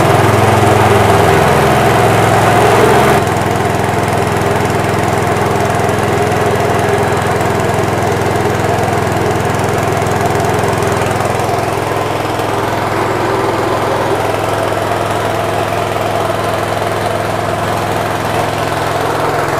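Small petrol engine running steadily, driving a stone chili grinding mill that is milling chilies into paste. Its pitch wavers for the first few seconds, and then it runs evenly at a slightly lower level.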